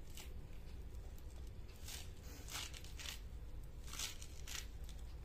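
Fresh bathua (chenopodium) greens being snapped and torn into pieces by hand, falling onto dry lentils: a few short, crisp snaps and rustles, faint, over a low steady hum.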